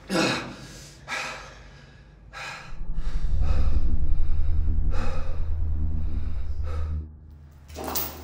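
A man gasping and breathing heavily, one breath every second or two. From about two and a half seconds in, a deep low hum rises underneath, then drops away near the end.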